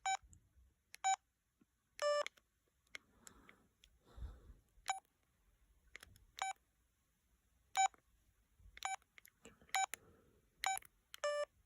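LG VX6100 flip phone keypad tones: short electronic beeps, about ten of them at irregular intervals roughly a second apart, as keys are pressed to move through the menus. Most are at one pitch; two are a little longer and lower.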